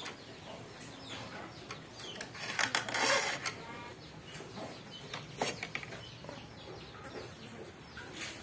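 A few short metal scrapes as a rusty hand saw is handled and its teeth filed against a wooden bench, the strongest scrape about three seconds in. Chickens cluck in the background.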